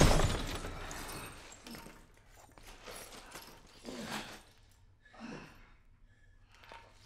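The tail of a heavy glass crash dies away over the first second or so. A man then gives a few heavy, groaning breaths and gasps.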